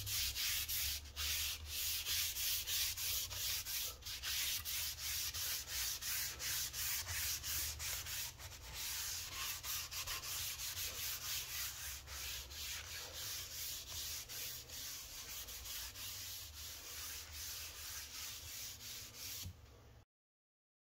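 Cloth rag wiped back and forth over a flat wooden board, spreading a liquid across the surface: a hissy scrubbing at about two strokes a second. It stops abruptly near the end.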